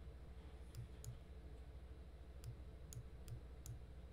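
Computer mouse clicking and scrolling: about six sharp, separate clicks at irregular intervals, over a steady low hum.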